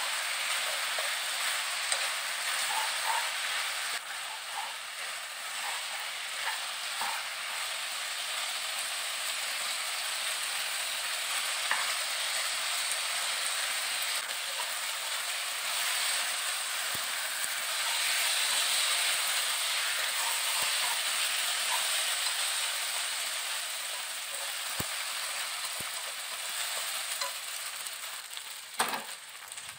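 Glass noodles, chicken and vegetables sizzling in a hot oiled wok while being tossed and stirred, with a steady frying hiss and small clicks of the utensil against the pan. The sizzle dies down near the end.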